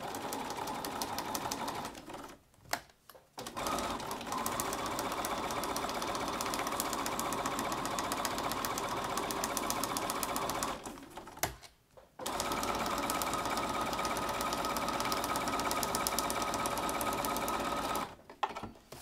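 Electric sewing machine stitching at a fast, even rate through fabric layers and foundation paper, in three runs with two short stops between them.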